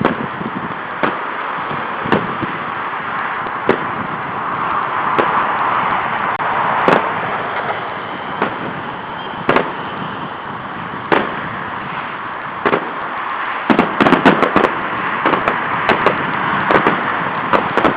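Fireworks going off: single sharp bangs every second or two, then a rapid cluster of bangs about three-quarters of the way through, over a steady background rush of noise.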